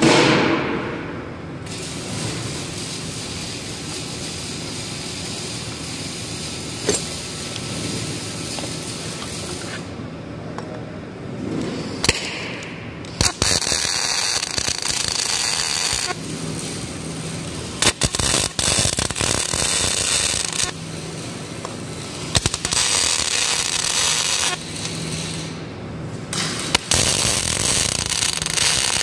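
MIG (wire-feed) welding of nuts onto a steel plate: the arc crackles and spits in several separate bursts of two to four seconds each, starting and stopping abruptly, over a steady shop background. It opens with a sharp knock at the very start.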